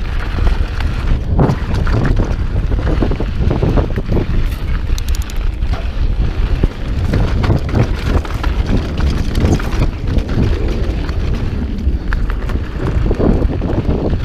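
Wind buffeting the camera microphone, a loud steady low rumble, with scattered light rattles and clicks over it.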